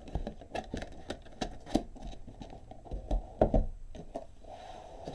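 Irregular light knocks and clicks, a dozen or so scattered through, the loudest pair a little past halfway.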